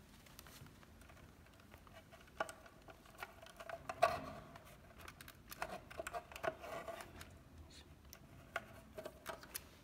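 Faint, scattered clicks and rustling of plastic wire connectors and cables being handled at an electric bike's controller box. The loudest click comes about four seconds in.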